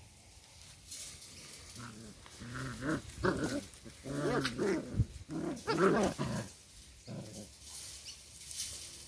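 Doberman puppies play-fighting, giving a run of wavering growls and yips in the middle of the stretch, with one sharp knock about halfway.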